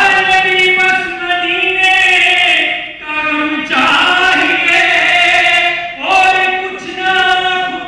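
Men's voices chanting a drawn-out devotional refrain in unison, in long sung phrases with short breaks about three and six seconds in.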